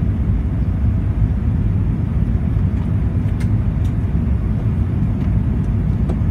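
Steady low rumble of an Airbus A380's engines and airflow heard inside the passenger cabin during the climb after takeoff, with a couple of faint ticks midway.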